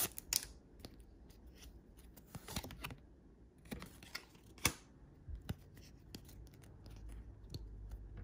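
Trading cards being handled and flipped through in the hand: faint scattered clicks and short scrapes of card edges against each other.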